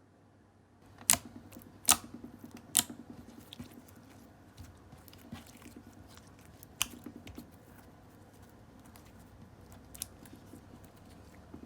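Slime being pressed and worked by hand, giving sharp pops and softer crackles and squelches. Starting about a second in, there are three loud pops about a second apart, then scattered softer crackling, with another sharp pop in the middle and a smaller one near the end.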